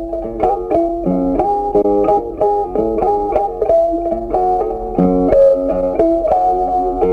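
Background music: an instrumental tune of plucked guitar notes picked at a quick, even pace over a bass line.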